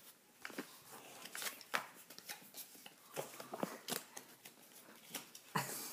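Pokémon trading cards and a foil booster pack being handled and flicked through: scattered soft rustles and light clicks.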